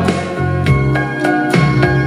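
Instrumental break of a Chinese pop ballad played back from a cassette tape: sustained backing chords with a steady drum beat and no vocals.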